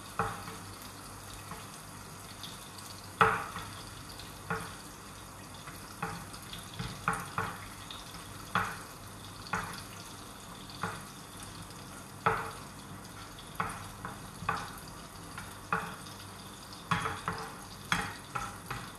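Raisins, cashews and whole spices frying in a pan of oil with a steady sizzle. A wooden spatula knocks and scrapes against the pan and a ceramic plate at irregular moments as the fried raisins and cashews are scooped out, the sharpest knock about three seconds in.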